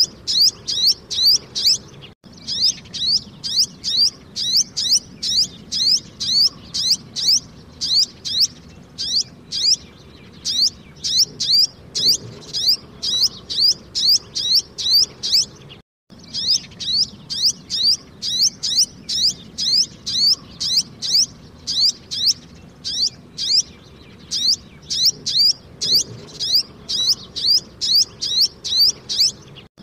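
Sunbird calling: a rapid run of short, high, sharp chirps, about three or four a second, in bouts, breaking off abruptly twice.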